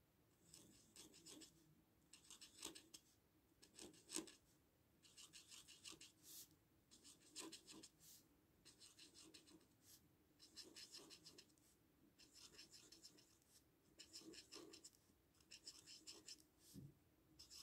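Black marker tip scratching faintly on paper in repeated short spells as small round dots are drawn and filled in, with a few light taps of the tip against the paper.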